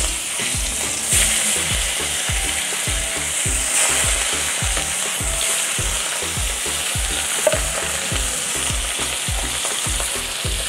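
Pieces of katla fish, coated in salt and turmeric, frying in hot mustard oil in a wok: a steady, loud sizzle as the pieces go into the oil one after another.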